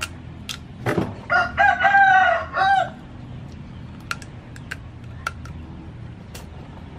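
A rooster crowing once, a pitched call of several linked notes about a second in, lasting about a second and a half. Around it come a few sharp cracks of crab shell being bitten and pulled apart.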